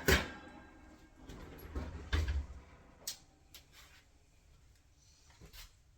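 Kitchen handling noises: a sharp knock at the start, a heavier knock about two seconds in, then a few lighter clicks and bumps.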